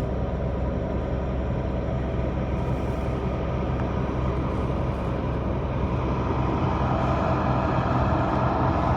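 Diesel engine of farm harvest machinery running steadily in a low drone, growing a little louder in the last couple of seconds.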